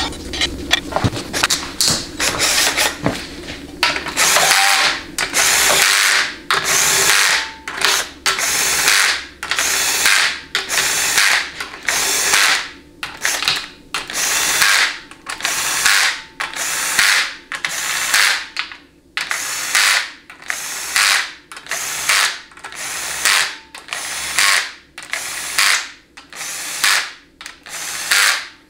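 Cordless drill/driver with a socket running down the bolts of a transmission test plate in short bursts, about one a second, starting about four seconds in. Before that, small clicks of bolts being fitted by hand.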